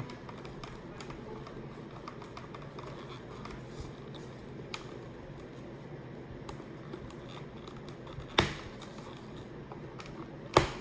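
Helmet padding and plastic parts being handled and pushed back into place: faint rustling and small scattered clicks, with two sharper, louder clicks about eight seconds in and near the end.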